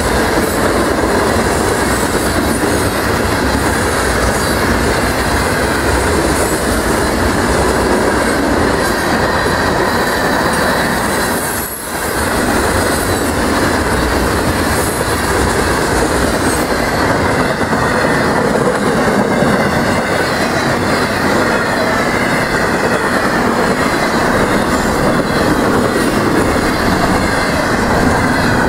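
Long freight train's cars rolling past at high speed: a loud, steady rumble and clatter of wheels on rail, with a brief dip in the noise about twelve seconds in.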